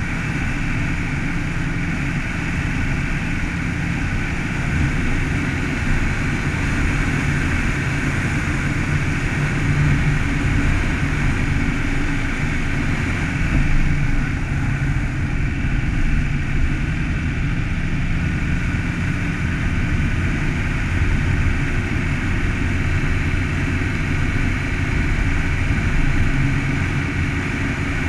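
Car driving at a steady pace on a snow-packed road: a low engine drone with steady tyre and road noise over it.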